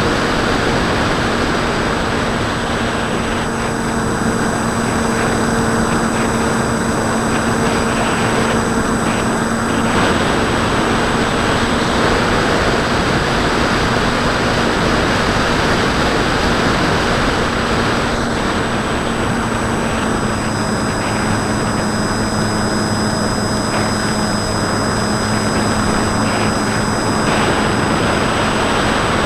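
Onboard sound of a Bixler 2 foam RC plane in flight: a steady rush of air over the airframe with the even hum of its pusher propeller, driven by a Turnigy D2826-10 1400kv brushless motor turning an 8x5 prop.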